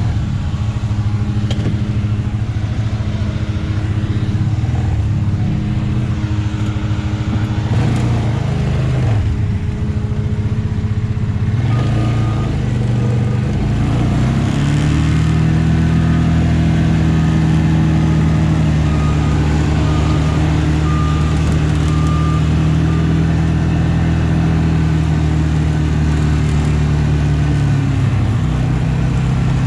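Farm tractor's diesel engine running steadily. About halfway through it speeds up and holds the higher speed, then drops back near the end.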